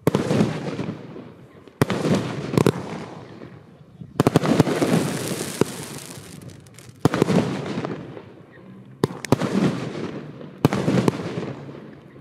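Small category F2 fireworks display: a string of sharp bangs about every one to two seconds, each trailing off, with a longer hissing, crackling spell after the bang about four seconds in.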